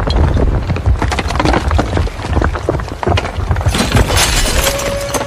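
Miniature clay bricks rattling and scraping in a tipping toy tractor trailer, rising to a louder clattering rush as they slide out and tumble onto sand about four seconds in. A steady high tone starts near the end.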